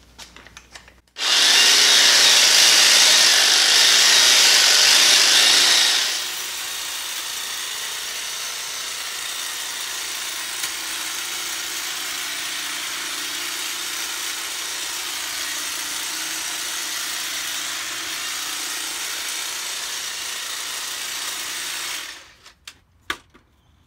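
Milwaukee M18 Fuel Quick Lok articulating hedge trimmer attachment running on its battery power head, cutting through a hedge. It starts about a second in, loud for the first few seconds, then runs steadily at a lower level, and stops near the end, followed by a couple of clicks.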